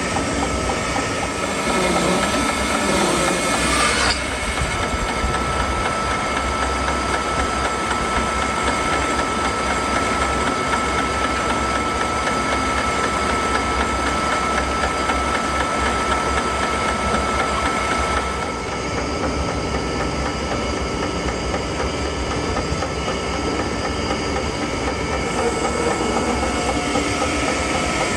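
Sawmill running and cutting through a walnut log, a steady mechanical drone with a constant high tone running through it. The sound shifts slightly and drops a little in level about four seconds in and again around eighteen seconds in.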